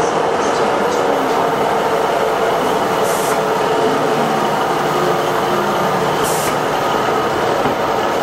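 Class 150 Sprinter diesel multiple unit moving along the platform, its underfloor diesel engines running with a steady drone. Two brief hisses come about three and six seconds in.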